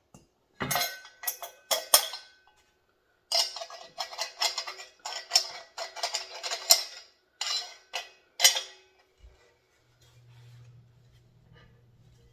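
Metal meat grinder parts clinking and clattering as they are handled and set down, some strikes ringing briefly. The clatter stops about nine seconds in, leaving a faint low hum.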